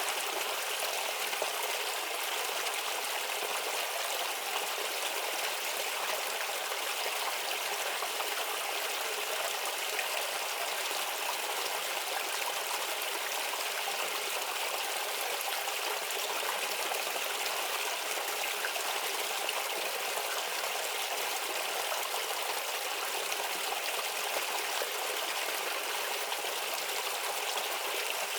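A shallow stream babbling steadily, water trickling and rippling over stones without pause.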